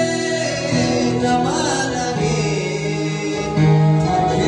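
A man singing a Kunama mezmur (gospel song) into a microphone, over sustained electronic keyboard chords.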